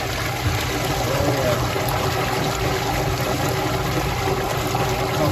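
Wastewater running and churning inside a lift station's PVC drain pipe: a steady rushing water noise.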